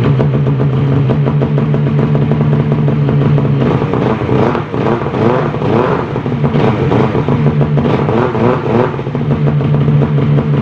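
Polaris Assault 800 two-stroke twin snowmobile engine running at a steady idle, revved up and down a few times midway, then settling back to idle. The track does not engage: the seized driven clutch leaves the new drive belt slipping and burning.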